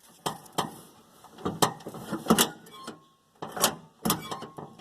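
A series of irregular sharp metal clicks and knocks from a car door's exterior handle and latch linkage being worked by hand, checking the play against a newly lengthened actuating rod.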